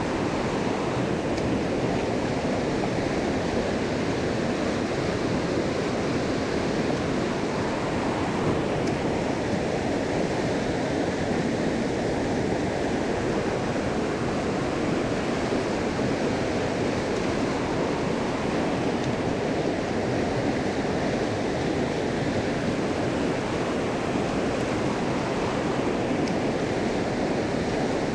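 Steady rush of water from a small mountain stream, an even noise with no change in level.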